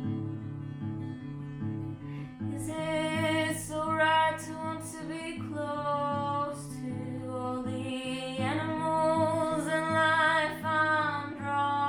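Song with an acoustic guitar playing a steady repeating pattern, and a woman's singing voice coming in about two and a half seconds in.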